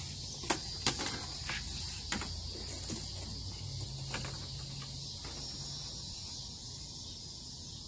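Steel tape measure blade drawn out along a plastic kayak deck: several light clicks and taps, mostly in the first half, over a steady high hiss.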